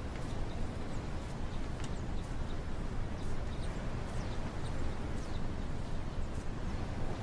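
Outdoor ambience: a steady low rumble, with faint short bird chirps scattered throughout.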